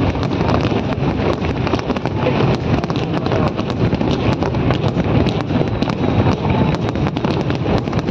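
Fireworks display going off nonstop: a dense barrage of many quick bangs and crackles over a continuous low rumble, with wind noise on the microphone.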